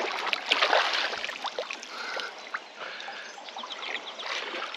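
Water splashing as a large brown trout thrashes and is grabbed by hand at the surface, loudest in the first second, then easing to the wash of shallow river water.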